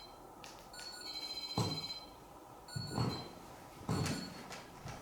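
REM pod sounding its electronic alarm: high-pitched tones that switch on and off, the alarm it gives when something disturbs its field. Three dull thuds about one and a half, three and four seconds in.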